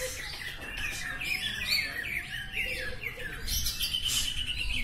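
Several caged greater green leafbirds (cucak ijo) singing at once, in a dense, unbroken stream of quick chirps and whistled phrases that rise and fall in pitch.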